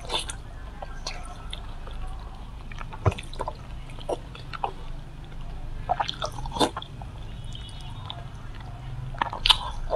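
Close-miked wet eating sounds: lip-smacking, sucking and chewing on sticky glazed braised meat. There are scattered short wet clicks, with the sharpest smacks about three, six and nine and a half seconds in.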